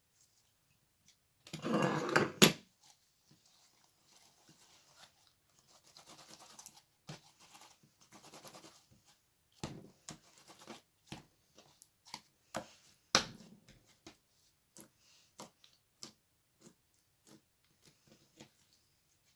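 Slime being squeezed and poked by hand, making irregular wet clicks, pops and crackles, with a dense crackling squish about a second and a half in.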